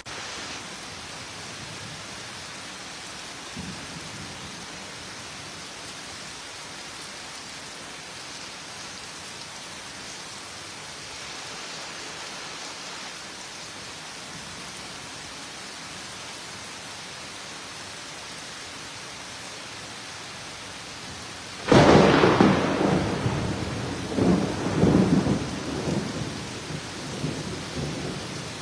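Heavy rain falling with a steady hiss. Near the end a sudden loud thunderclap cracks, then rumbles on in several swells that fade over a few seconds.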